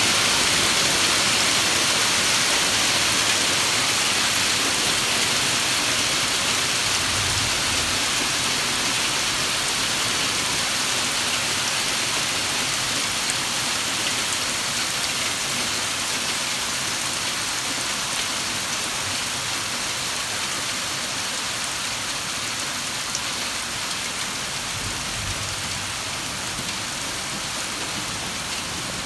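Small hailstones pelting a concrete pool deck and splashing into the water of a swimming pool: a dense, steady hiss of countless small impacts that slowly eases.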